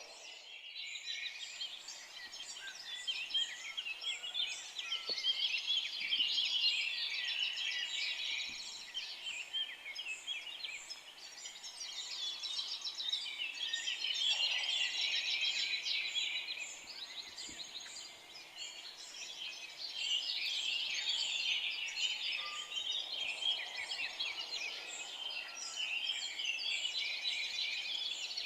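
Chorus of many forest birds chirping and singing at once, a dense overlapping chatter that swells and fades every few seconds.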